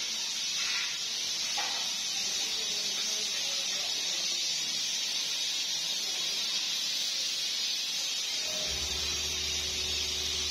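Steady high hiss of metalworking on steel pipe. A low motor hum starts about eight and a half seconds in.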